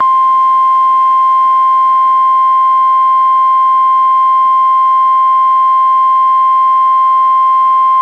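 NOAA Weather Radio warning alarm tone: a single loud, steady 1050 Hz tone that holds without a break, sounding ahead of a Special Marine Warning broadcast.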